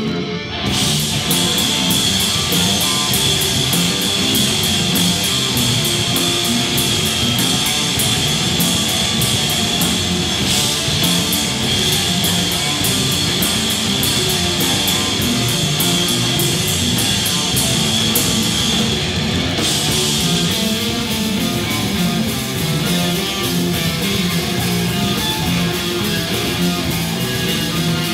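A loud live heavy rock band playing: distorted electric guitar over bass and drums. Fast, even cymbal strokes run through the first two-thirds and stop about twenty seconds in.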